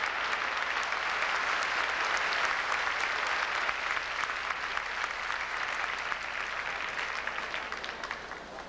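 Crowd applauding, many hands clapping together, dying away near the end.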